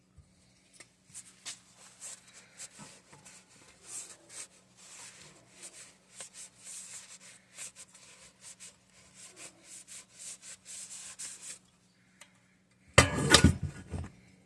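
Rag rubbing and scrubbing irregularly inside the crankcase of a small 196cc single-cylinder engine, wiping out leftover crud. Near the end comes a brief loud clatter.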